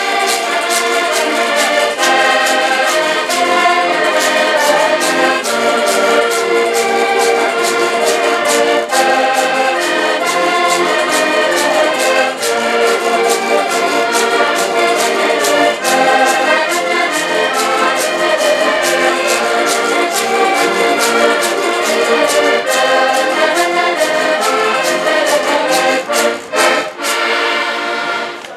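An ensemble of several piano accordions playing a tune together with a strummed small guitar, to a steady beat. The tune closes with a few short, sharp chords near the end.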